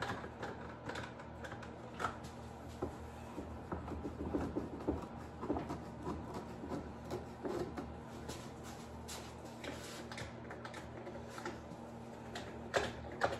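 Clamps being tightened and repositioned along a wooden bending jig, giving irregular light clicks and knocks of metal on wood, as a heat-softened vinyl plank is squeezed down around the bullnose form.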